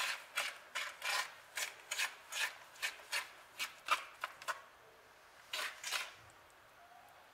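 A fork beating eggs and sugar in a well of flour on a wooden pastry board, its tines scraping in quick rhythmic strokes, about two to three a second. The strokes pause after about four and a half seconds, come twice more, then stop near the end.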